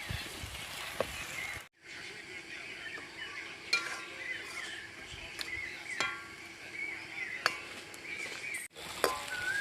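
Oil sizzling in a pan as food fries and is stirred, with the metal spatula clinking sharply against the pan several times. The sound drops out briefly twice.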